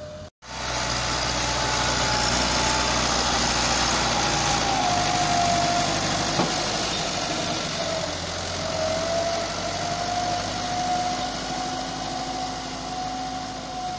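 Massey Ferguson 385 tractor's diesel engine straining under heavy load as it pulls a fully loaded wood trolley. A steady whine runs over the engine and dips in pitch about midway before levelling out again. The sound cuts in about half a second in.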